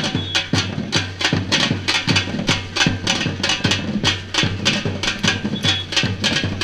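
Samba-reggae drum ensemble playing a fast, driving rhythm of dense, evenly spaced drum strokes over a steady deep bass drum pulse.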